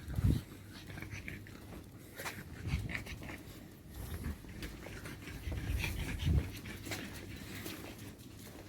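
Dogs panting as they walk on leashes, with a few dull low thumps, the loudest just after the start and about six seconds in.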